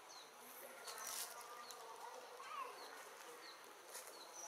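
Faint forest ambience: a short, high, falling chirp repeating several times, with a few brief rustles.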